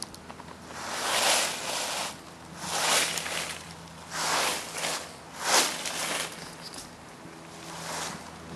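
Footsteps through a thick layer of dry fallen leaves: about five steps, each a swell of leaf rustling, roughly one every second and a half.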